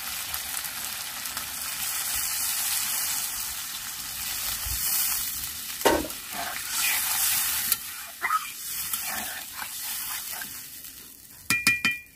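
Koi fish sizzling in mustard oil in an aluminium karahi, stirred with a metal spatula. Water goes into the hot oil with a sharp burst about six seconds in, and the sizzle then dies down. A few spatula clinks on the pan come near the end.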